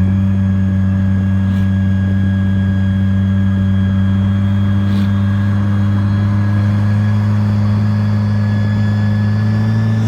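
Car engine running at a steady, unchanging speed: a loud, constant low drone.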